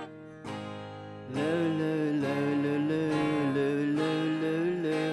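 End-credits music with strummed acoustic guitar; after a brief quieter dip, a wavering melody line comes in just over a second in and carries on over the chords.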